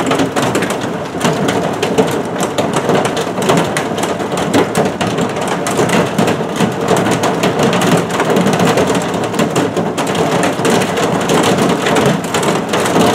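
Heavy thunderstorm downpour: a steady loud rush of rain with a dense patter of drops striking close by.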